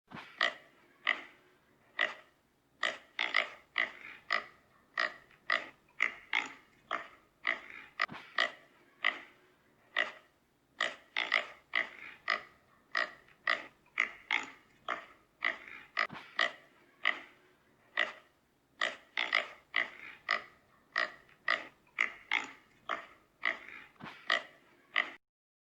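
A pig squealing: short, shrill squeals in quick succession, about one to two a second, cutting off suddenly near the end.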